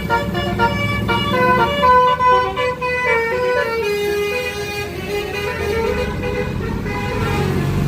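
A bus's multi-tone 'telolet' (Basuri) horn playing a melody of short stepping notes, over the low rumble of the bus engine.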